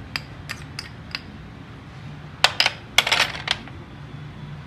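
Steel spoons clinking against bowls and a stainless-steel spice box: a few light taps in the first second, then a louder run of clinks about two and a half to three and a half seconds in.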